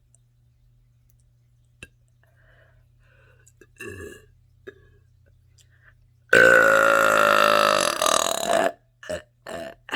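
A woman's single long, loud burp lasting a little over two seconds, its pitch sinking slightly as it goes. There is a soft short sound about four seconds in, and two quick short sounds follow the burp near the end.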